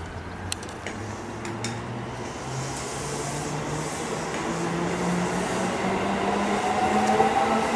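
JR West electric multiple unit pulling away along the platform, its traction motors whining in a tone that climbs steadily in pitch and grows louder as the train accelerates. A few sharp clicks are heard in the first two seconds.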